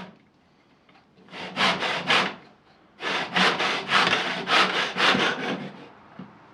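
Hand saw cutting a wooden trim piece at 45 degrees in a miter jig: a short run of about three strokes, a brief pause, then about eight more quick back-and-forth strokes.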